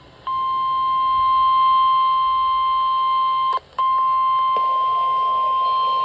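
NOAA weather radio sounding the steady 1050 Hz warning alarm tone, the signal that a warning is being broadcast. The tone cuts out briefly about three and a half seconds in, then resumes.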